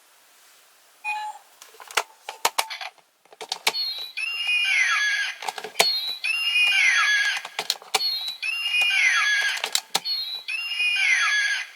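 DX Zyuohger Changer Final toy's electronic sound effect played through its small speaker, the same short call with sweeping pitches repeating four times, about every two seconds. Sharp plastic clicks from its buttons and dial come before and between the repeats.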